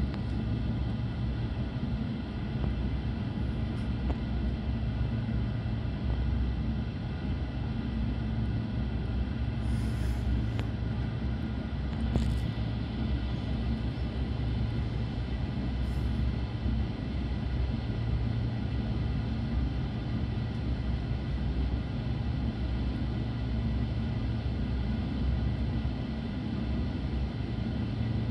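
Steady low rumble of a Belgian Railways I10 passenger coach running along the track at speed, heard from inside the coach. A few brief, faint high squeaks come through around the middle.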